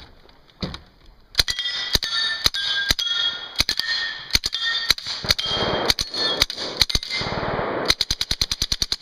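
Suppressed Beretta PM12S 9mm submachine gun firing bursts in a timed run, shot after shot from about a second and a half in, with short metallic rings after many of the shots. Near the end it fires a fast, even string of about ten rounds a second.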